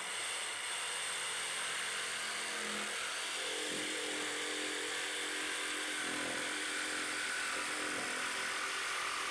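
Cordless jigsaw running steadily as its blade cuts a curve through a thin panel, an even, unbroken hiss; a faint low hum joins about three seconds in.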